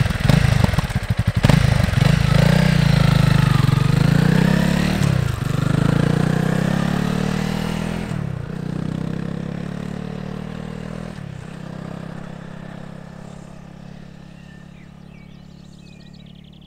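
Honda CRF300L's single-cylinder engine pulling away and accelerating, its pitch climbing and dropping back at three upshifts, fading steadily as the bike rides off into the distance. Birds chirp faintly near the end.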